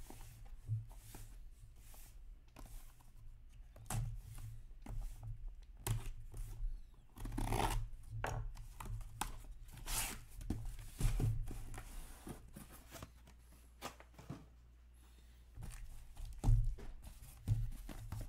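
Cardboard shipping case being cut and torn open by hand: irregular scraping, tearing and knocks of cardboard, loudest in two rips about halfway through, then a quieter pause before the boxes inside are handled.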